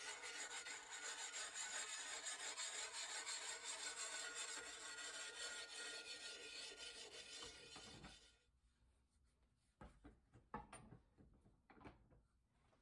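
Round puck sharpening stone rubbed against the steel edge of a brush axe blade, a steady rasp that stops about eight seconds in. A few light knocks and handling sounds follow.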